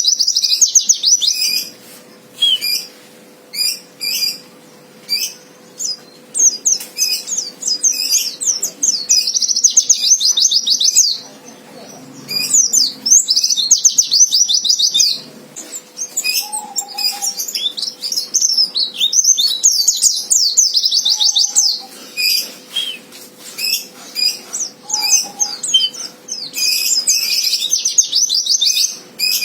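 Pleci (white-eye) singing a fighter song: fast, high trilling phrases of a second or two, alternating with short sharp chirps. This is the song birdkeepers play to provoke a rival white-eye into singing back quickly.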